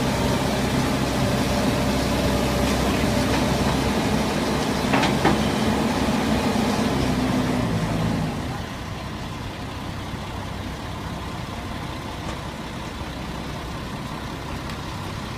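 Heavy diesel engine of construction machinery running steadily, with a single knock about five seconds in. About eight seconds in it drops to a noticeably quieter, steady running.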